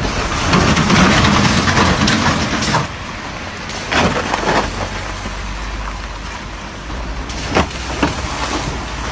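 Car driving on a rough, badly kept street: road and tyre noise, louder for the first three seconds, with several short thumps from the wheels hitting bumps or holes.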